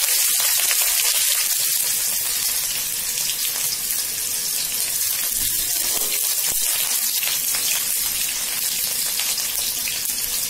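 Sliced onions sizzling steadily in hot oil in a kadai, with fine crackles throughout.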